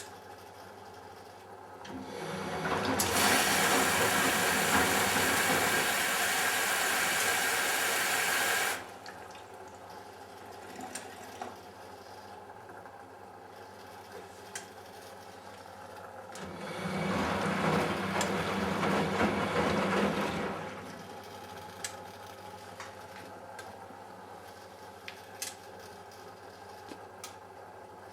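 Matura Autostatic 850 washing machine in its 60 °C delicates wash: two loud surges of rushing water, the first starting about two seconds in and cutting off suddenly a few seconds later, the second rising and fading out near the end. Between them the machine hums steadily with a few light clicks.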